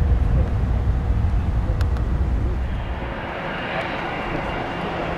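Jet airliner engines rumbling. The low rumble fades about three seconds in while a higher-pitched hiss builds toward the end.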